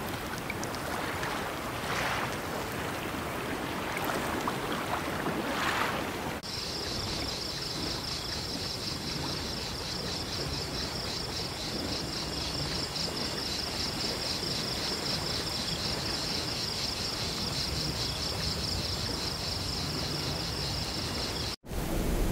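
Sea ambience with two waves washing in during the first few seconds. From about six seconds in, a steady, high insect chirring with a fast pulse sits over the low wash, then cuts off abruptly near the end.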